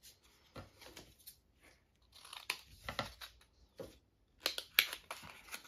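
A small paper advent-calendar packet being opened by hand: irregular crinkling and tearing of paper, with a few louder rips about halfway and near the end.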